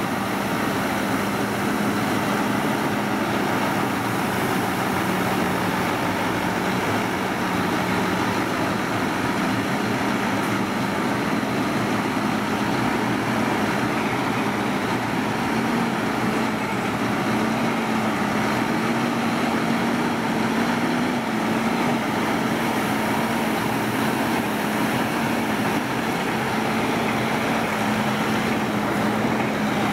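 Diesel engine of a Mercedes-Benz heavy-haul truck tractor running at low revs as it creeps forward under the load of a heavy transport, a steady drone whose pitch lifts slightly about halfway through and then settles back.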